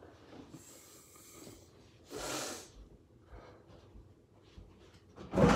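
Person moving about the room: a short rustling hiss about two seconds in, then a thump near the end, the loudest sound.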